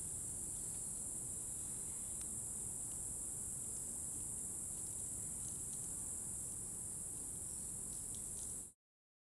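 Steady, high-pitched chorus of insects droning without a break, with a few faint ticks; it cuts off suddenly near the end.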